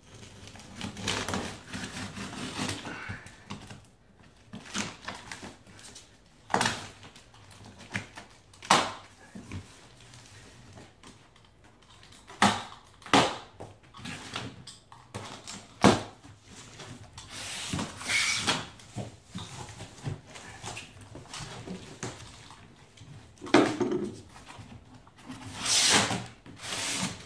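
Large cardboard shipping box being cut open with a box cutter and its flaps pulled apart: scraping and tearing of cardboard and packing tape, with scattered knocks against the box, and longer tearing sounds near the middle and near the end.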